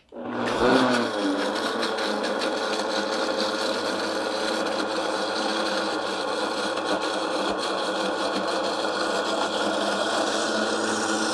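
Countertop blender motor spinning up in the first second, then running at a steady high speed as it blends and emulsifies a basil vinaigrette while basil oil is poured in through the lid.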